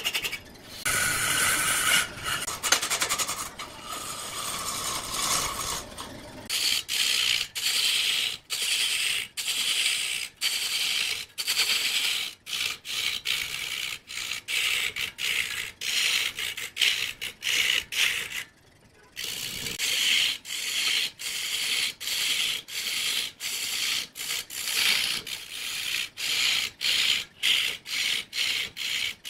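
Woodturning tool scraping and cutting wood. It scrapes more steadily for the first few seconds, then in quick repeated strokes, about two a second, with one brief pause about two-thirds of the way through.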